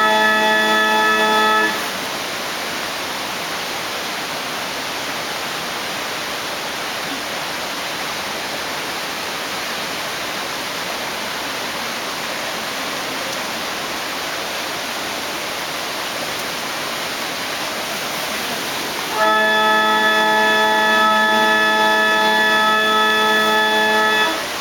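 The Villa d'Este water organ, a water-powered pipe organ, holding one sustained chord over the steady rush of falling water. The chord cuts off about two seconds in, leaving only the water, and the same chord sounds again for about five seconds near the end.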